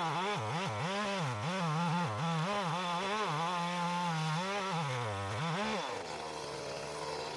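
Two-stroke chainsaw running at high revs, its engine pitch sagging and recovering again and again as it bogs down cutting wood. About six seconds in, it drops to a lower, steady idle.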